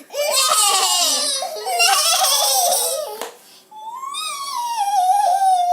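A child imitating a horse's whinny with her voice: a wavering, quavering call, then after a short break a second long call sliding down in pitch.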